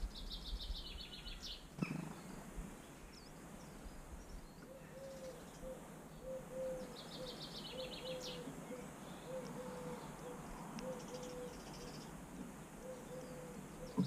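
Garden birdsong: a small songbird sings a short, high, rapidly trilled phrase near the start and again about halfway through. A single sharp tap comes about two seconds in, and from about a third of the way in a steady series of short low notes repeats a little faster than once a second.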